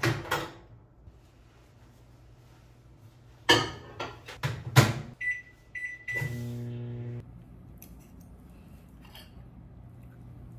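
Household appliance being operated: a few knocks and clicks, then electronic beeps and about a second of motor hum that stops abruptly, over a steady electrical hum.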